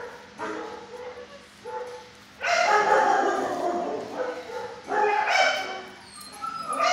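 A dog vocalizing in short yips and whines, with a long drawn-out cry lasting more than a second about two and a half seconds in, a shorter one near five seconds, and another starting just before the end.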